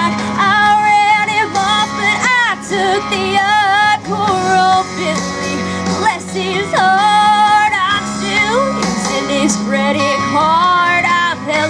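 A teenage girl singing a country song live through a microphone and PA over backing music, her voice wavering with vibrato on held notes.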